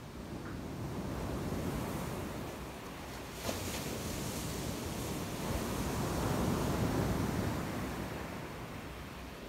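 Surf breaking on a sandy beach: a steady rush of waves that swells and eases, loudest about six to seven seconds in. A single short click about three and a half seconds in.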